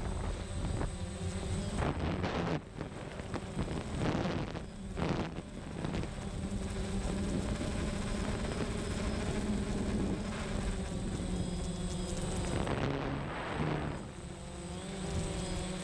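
Steady buzz of a camera drone's electric propeller motors, heard from on board, with wind rushing over the microphone.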